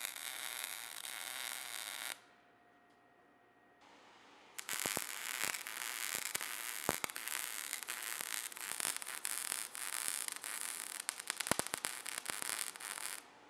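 Arc welding on steel: the arc crackles and sizzles while laying finish-weld beads. One bead stops about two seconds in, and after a short pause the welding starts again and runs until just before the end.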